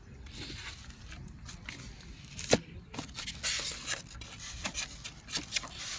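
Hands handling packaging and parts out of the box: rustling and scraping, with short clicks and one sharp click about two and a half seconds in.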